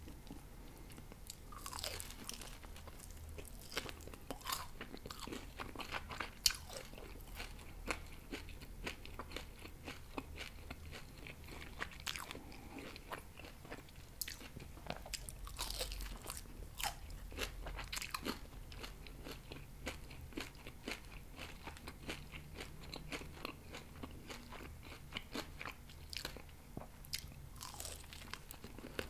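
Close-miked chewing and biting of grilled pork ribs: many small crunches and wet clicks as the meat is bitten and chewed.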